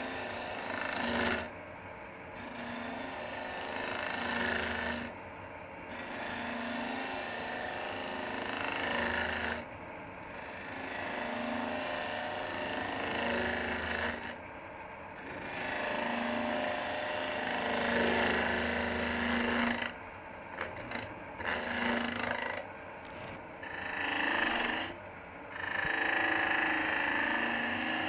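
A Robert Sorby ring tool cutting green end-grain wood inside a bowl spinning on a wood lathe: a scraping, shaving noise in passes of a few seconds each, broken by short pauses, over the lathe's steady hum.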